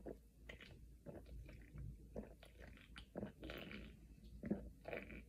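A person gulping down fizzy root beer: a run of faint, uneven swallowing sounds, about two a second.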